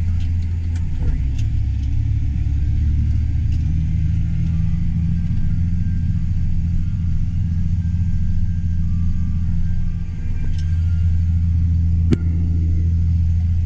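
Combine harvester's engine and machinery running with a steady low drone, heard from inside the cab. A sharp click about twelve seconds in.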